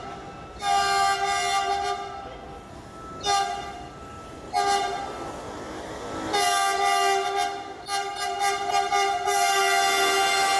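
Train horn sounding in blasts: one of about a second and a half, two short toots, then a long held blast that starts a little past halfway.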